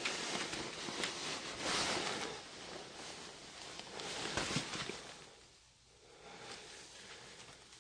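Rustling and handling noise, with a few small clicks, as the camera moves close to bags and debris; it fades to near silence about five seconds in.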